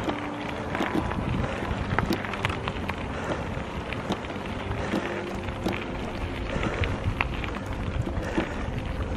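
Wind buffeting the microphone over a steady rumble of tyres on a tarmac lane, with scattered clicks and rattles from a recumbent trike being pedalled uphill.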